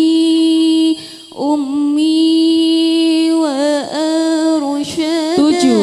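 A solo voice singing an Arabic devotional song about father, mother and teachers, holding long drawn-out notes with wavering melismatic turns and a brief break about a second in.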